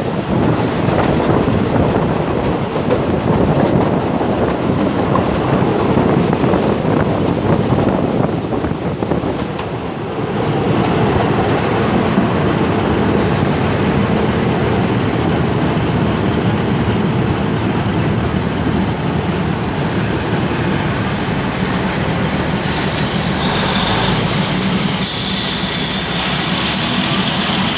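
Passenger train carriage heard from an open window while running: wheels rumbling and rattling on the rails. Near the end a higher squeal and hiss builds as the train brakes into the station.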